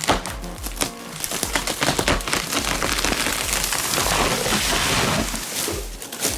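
Dense crackling and splintering of wood, a rapid rush of cracks that builds about a second in and fades near the end, over background music with a steady bass beat.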